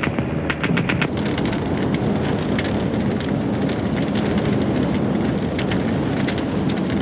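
A rapid burst of machine-gun fire in the first second, then a loud, steady rumbling roar with a low drone and scattered crackles.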